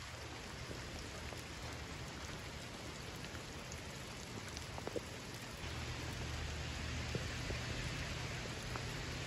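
Steady rain falling, an even hiss with a few drops ticking. A low hum comes in a little past halfway.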